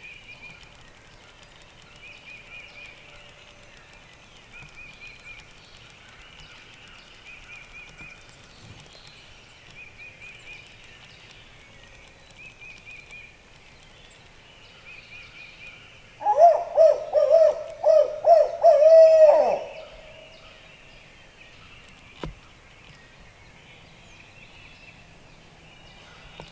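Woodland birds: a songbird repeats a short high phrase about every two and a half seconds. About two-thirds of the way through, a much louder, rapid, pulsing call lasts about three seconds and ends in a falling note.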